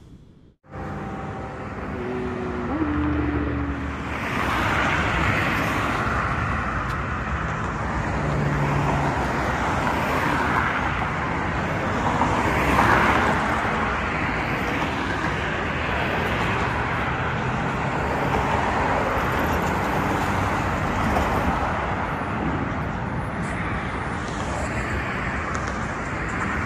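Street traffic noise, a steady hum of cars with louder swells as vehicles pass.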